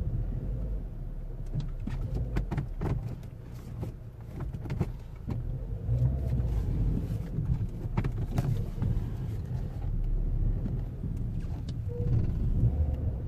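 A 2006 Renault Scenic's engine idling, heard from inside the cabin: a steady low rumble with scattered light clicks.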